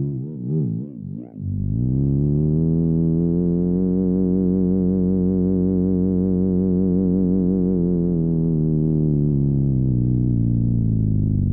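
Electronic synthesizer tones: a warbling note that wobbles up and down in pitch for about a second and a half, then settles into a steady low drone.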